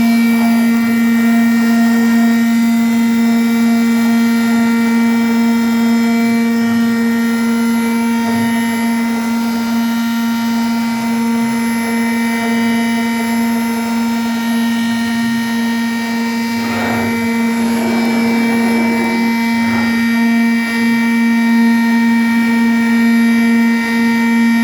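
The 8 hp Colombo ATC spindle motor of a 1995 Motionmaster 3-axis CNC router runs at speed with a steady whine, and a rougher rushing noise joins in for a few seconds past the middle.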